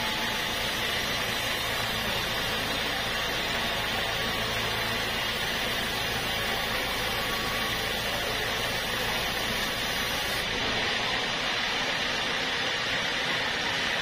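Band sawmill running steadily, its blade sawing lengthwise through a thick block of red hardwood: an even, continuous hiss with a steady low motor hum beneath.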